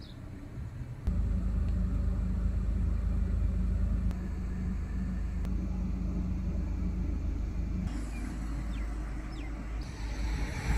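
Steady low rumble of a car driving, heard from inside the cabin: engine and tyre noise. It starts abruptly about a second in.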